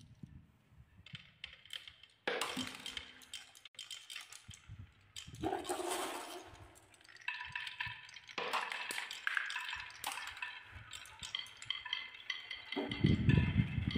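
Glass marbles rolling and clattering along a wooden marble run, clicking against one another as they circle a wooden spiral track and roll down a grooved wooden slope. A louder, deeper rolling rumble comes near the end.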